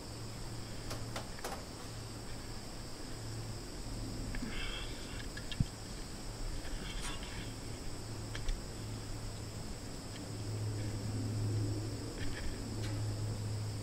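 Steady high-pitched insect chirring, cricket-like, over a low steady hum, with a few small clicks and rustles of handling.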